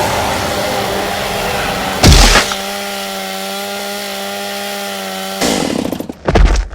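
Chainsaw sound effect running steadily at a constant pitch, with a loud crash about two seconds in and a burst of rough, choppy noise near the end as it cuts out.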